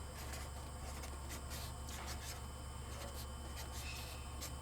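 A pen writing a signature on a truck's dashboard: a run of short, faint scratchy strokes over a steady low hum.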